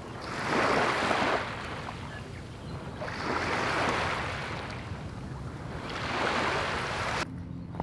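Small waves washing onto a pebbly sand beach, with three swells of surf rising and falling a few seconds apart. The sound cuts off suddenly near the end.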